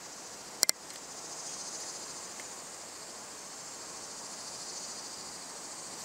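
Steady high-pitched trilling of a crickets' chorus, with two sharp clicks in quick succession less than a second in.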